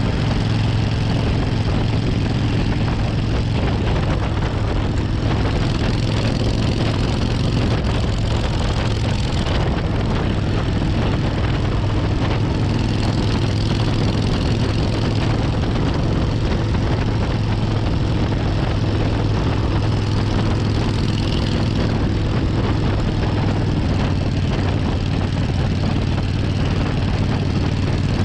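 1994 Suzuki Intruder 1400's 1360 cc V-twin engine running steadily as the motorcycle cruises, its low hum holding an even pitch, mixed with wind and road noise.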